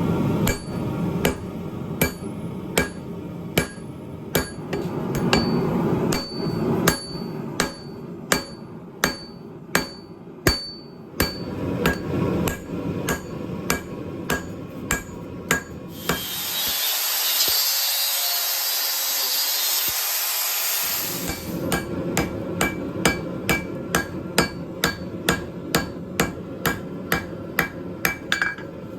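Hand hammer forging a chef knife blade on an anvil, striking at a steady pace of about two blows a second, with a metallic ring after many of the blows. About sixteen seconds in, the hammering breaks off for some five seconds of steady hissing, then it starts again.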